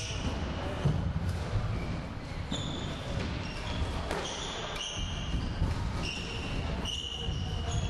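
Football thudding off the floor and walls of an enclosed wooden-floored court, with a ringing echo. Players' sports shoes squeak sharply on the wooden floor about half a dozen times.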